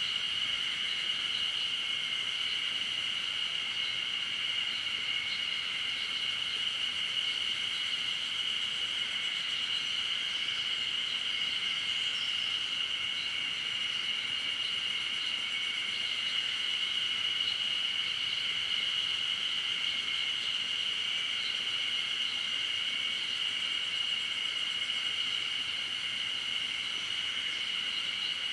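Steady insect chorus: a continuous high-pitched buzz that holds level without breaks.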